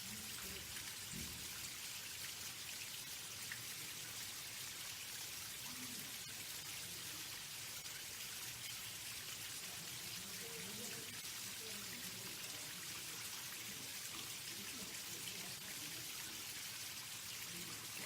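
Faint, steady patter of water falling and trickling onto a pond's surface.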